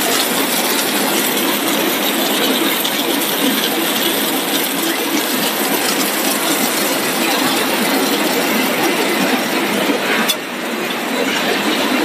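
Tortilla chip production line machinery running: a steady, dense mechanical din from the dough sheeting rollers and conveyor, with a short click and brief drop in level about ten seconds in.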